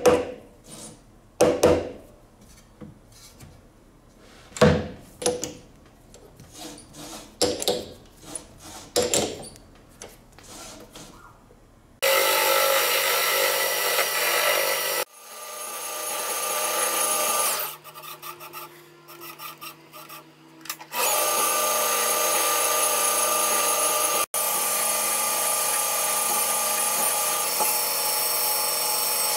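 Irregular taps and knocks on a rough aluminium casting as it is set up between lathe centres. About twelve seconds in, a metal lathe starts and runs with a steady whine while the casting is turned down. The lathe drops off a few seconds later, runs up again, and runs steadily near the end while the spinning part is sanded with abrasive cloth.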